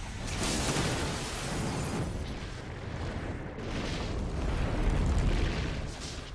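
Film sound effects of a fiery blast wave engulfing a city: a continuous deep rumble of explosions and fire, with rushing surges that swell and fade about three times.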